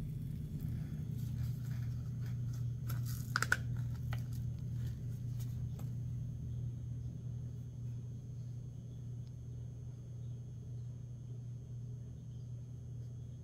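Peat pellets in a seed-starting tray soaking up water and swelling, giving off faint crackling and popping, with one louder click about three and a half seconds in; the crackling thins out after about six seconds. A steady low hum runs underneath.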